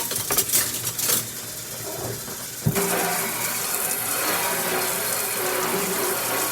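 Kitchen dishes clinking and clattering, then about two and a half seconds in a kitchen tap is turned on and water runs steadily into the sink.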